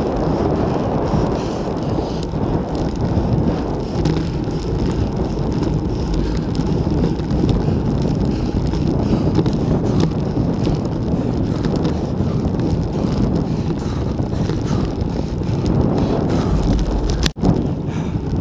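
Wind rushing over the handlebar camera's microphone on a road bike moving at about 30 km/h, with tyre rumble on the concrete road. The sound drops out for an instant near the end.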